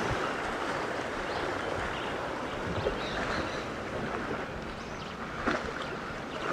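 Sea surf washing against shoreline rocks, a steady rushing wash with wind buffeting the microphone, and a couple of light knocks about three and five and a half seconds in.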